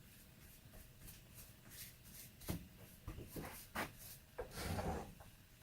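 A brush scrubbing the outside of a chainsaw's fuel and oil tanks: faint, scattered short strokes and scrapes, with a longer rub near the end.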